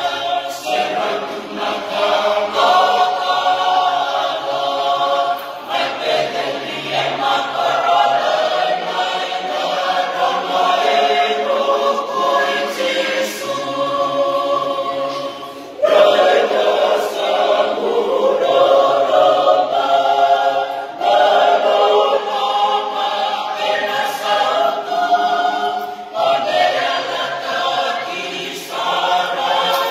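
Church choir singing a hymn unaccompanied, phrase after phrase, with a short break about halfway through before the next phrase comes in loud.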